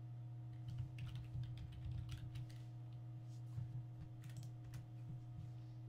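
Typing on a computer keyboard: irregular, quick key clicks, over a steady low hum.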